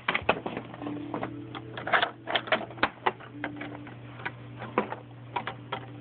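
Small plastic toys being handled and moved on a hard surface: irregular light clicks and taps, several a second, over a steady low hum.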